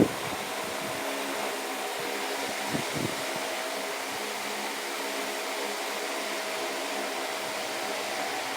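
Tron wall fan running steadily: an even rush of air with a motor hum. There is a brief knock about three seconds in.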